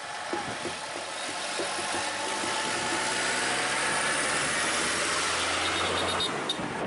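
A Tata lorry's diesel engine runs as the truck moves off past close by, while a Mitsubishi pickup approaches. Engine and tyre noise swell over about four seconds and drop off sharply about six seconds in, with a few light knocks at first.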